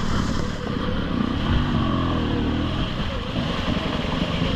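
Two-stroke dirt bike engine, the 2020 TM EN300 TPI, riding through mud, its revs rising and falling with the throttle.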